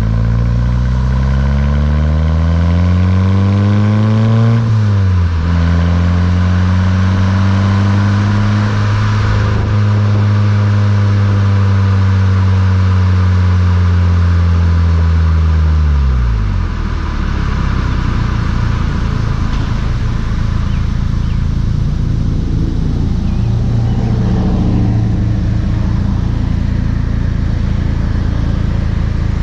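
VW Mk6 GTI's turbocharged 2.0-litre four-cylinder through a Beluga aftermarket exhaust, rising in pitch under acceleration, dropping at an upshift about four and a half seconds in, then running at a steady pitch. Around sixteen seconds the pitch falls away quickly as the throttle closes, leaving mostly road and wind noise with the engine low underneath.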